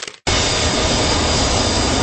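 Jet noise from a Boeing 727-200's three Pratt & Whitney JT8D turbofans as the airliner rolls down the runway at high power: a loud, steady rush with a thin high whine. The sound drops out for a split second right at the start.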